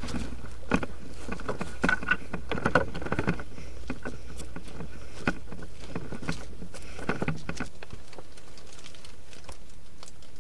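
Clothing and gear rustling with light knocks, and dry leaves crunching underfoot, as a person moves about and crouches. The irregular clicks and rustles are busiest in the first few seconds and again about seven seconds in.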